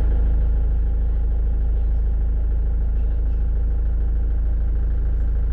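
Motorhome engine idling steadily, heard from inside the cab: a constant low hum with no revving.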